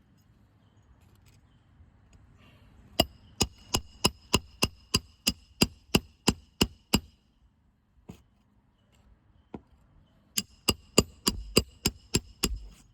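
Roofing hammer striking a steel roof snake to drive a nail in under an asphalt shingle: two runs of quick metallic strikes, about three a second, each with a ringing tone. The first run has about a dozen strikes, the second about nine.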